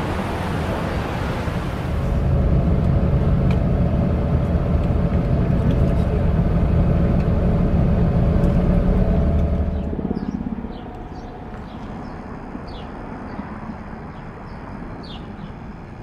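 Outdoor ambience with a loud, steady low rumble of a motor vehicle running for several seconds, cutting away about ten seconds in. Quieter background follows, with short bird chirps.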